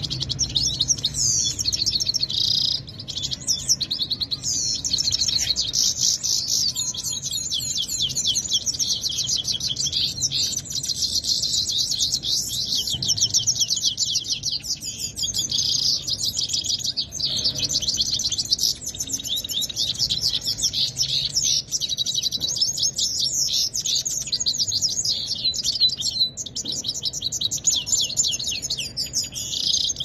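Caged finches singing nonstop in fast, high trills and chirps: a song duel between caged birds.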